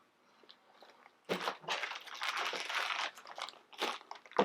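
Jewelry packaging being handled and opened, crinkling and rustling irregularly. It starts about a second in.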